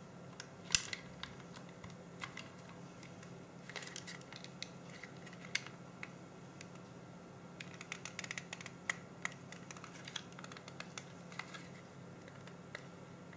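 Faint small clicks, taps and scrapes from the metal and plastic parts of an Olympus C-350 Zoom digital camera being handled and worked at with a small screwdriver during a teardown. There is one sharper click about a second in, and a quicker run of clicks in the second half.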